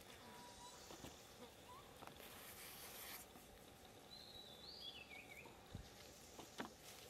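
Faint outdoor ambience: a soft hiss with a few short, high chirps, one of them falling in pitch about four seconds in, and a couple of light clicks.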